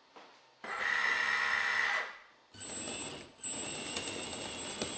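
Hydraulic pump of a Lesu CAT 374FL RC hydraulic excavator running as the machine works, a steady whining mechanical run. It runs loudly for about a second and a half, cuts off briefly, then runs on a little quieter with a thin high whine.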